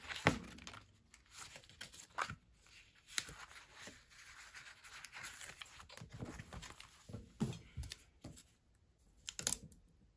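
Paper rustling as sticker-book pages are handled and flipped, with stickers peeled off their backing: short, scattered crinkles and taps, the sharpest just after the start and near the end.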